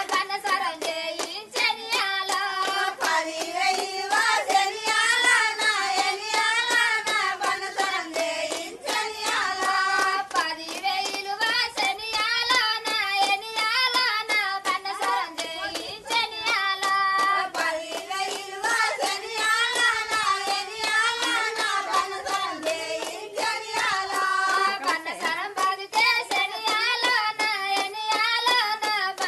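Women singing a song, with hand claps keeping time throughout.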